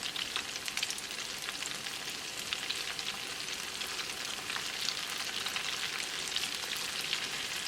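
Flour-coated chicken pieces deep frying in hot vegetable oil: a steady sizzle dotted with many small crackles and pops.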